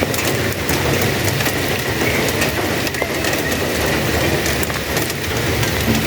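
Heavy rain falling steadily, many drops ticking on surfaces, over a low continuous rumble.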